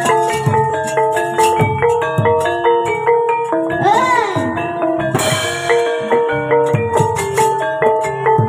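Javanese gamelan music: bronze metallophones play interlocking melody notes over a regular low drum beat. About four seconds in a short tone slides up and back down, and just after it a crash-like hit rings out.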